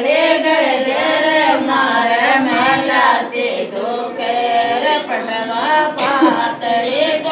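A group of women singing a Rajasthani Marwari folk song to Bheru ji without instruments, holding long notes that waver and slide in pitch.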